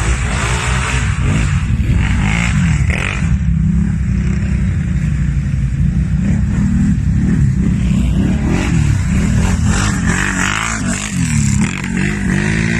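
Off-road vehicle engines revving hard in mud, the pitch swinging up and down again and again over a steady engine rumble.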